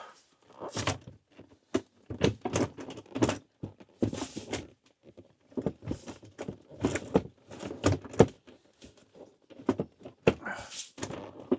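A string of irregular knocks, thunks and clunks from hands handling a van seat and a portable power station, as the seat is tried against the battery set beside it.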